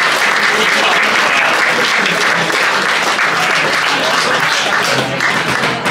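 Audience applauding: dense, steady clapping from a room full of people, easing slightly near the end.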